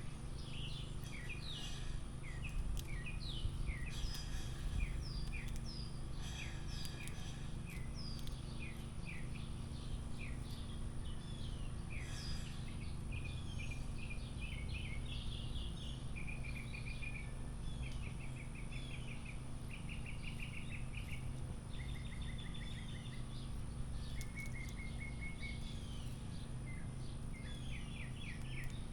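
Small songbirds chirping and calling, short notes with some fast trills of repeated notes, over a steady low background rumble.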